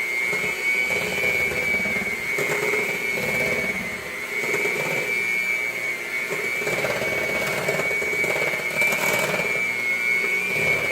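Electric mixer running at low speed with a steady high whine, its beaters working egg and vanilla into the cookie dough in the bowl.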